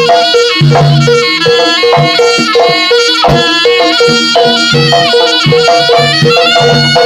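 East Javanese jaranan ensemble music: a shrill reed wind instrument, the slompret, plays a winding melody over a steady beat of drums and percussion.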